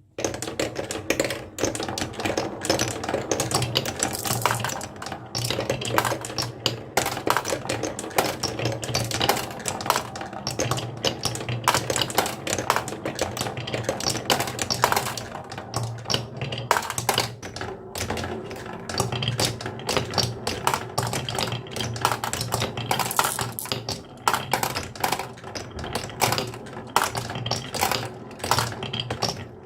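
Marbles rolling and clacking down a wooden marble run: a dense, continuous stream of clicks and knocks over a steady low rolling rumble.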